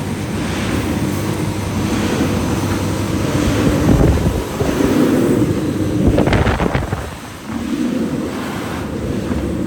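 Automatic flatbed die-cutting and creasing machine running with a steady mechanical rumble, with louder surges about four and six seconds in.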